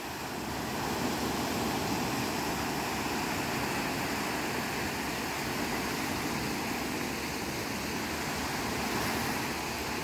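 Small sea waves washing steadily onto the shore on a falling tide.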